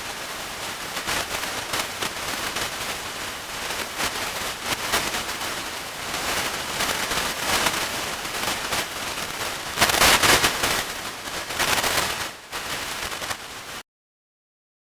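Vinyl record crackle and surface noise: a dense stream of crackles and pops, louder about ten seconds in, that cuts off suddenly near the end.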